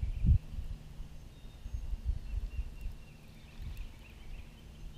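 Outdoor ambience: an uneven low rumble of wind buffeting the microphone, loudest at the very start, with faint bird chirps.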